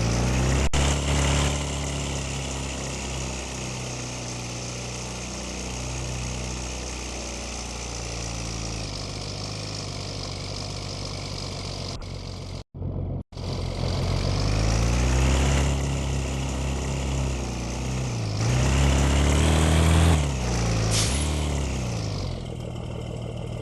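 Yamaha R25 motorcycle's parallel-twin engine running and being revved, its pitch rising and falling several times in the second half. The sound cuts out briefly about halfway through.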